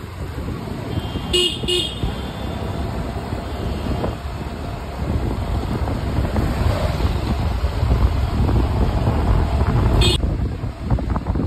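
Wind buffeting the microphone and road noise on a moving two-wheeler, a steady rumble. A vehicle horn gives two short toots about a second and a half in, and one more brief toot near the end.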